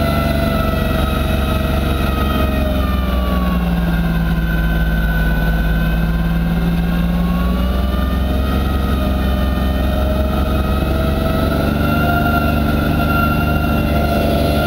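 Massey Ferguson 1020 compact tractor's diesel engine running under load while its front-mounted snowblower throws snow, heard from inside the cab. About three seconds in, the engine note sags as the blower takes on heavier snow, then slowly climbs back up to speed.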